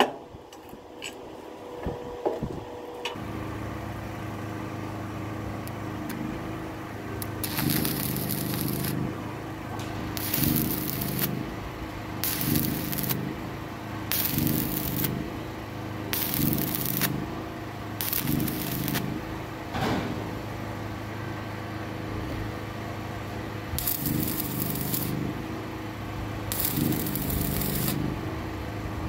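Arc welder tack-welding steel brackets onto a steel-pipe fence panel: short bursts of crackling arc, about one a second long and roughly every two seconds from about seven seconds in, over a steady low hum. A few light taps come in the first couple of seconds.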